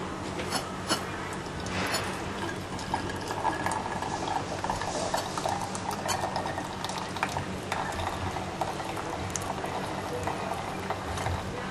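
Hot herbal decoction poured from the spout of a glazed clay decoction pot through gauze into a cup: a continuous trickling, splashing stream with small clicks, thickening a few seconds in.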